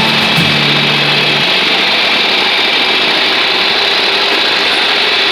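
Old John Deere tractor engine running steadily, an even rough drone.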